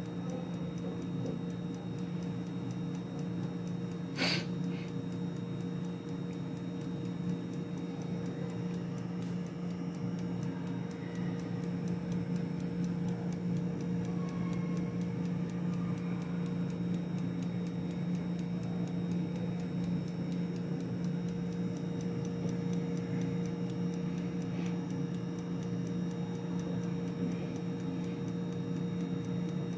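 Mondial air fryer running: its fan motor hums steadily while the clockwork timer ticks evenly. One sharp click about four seconds in.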